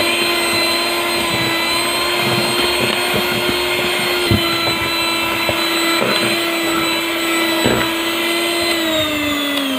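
Electric hand mixer running at high speed, a steady motor whine as its beaters whip cake batter, with a couple of knocks of the beaters against the glass bowl. Near the end the motor's pitch starts to fall as it slows down.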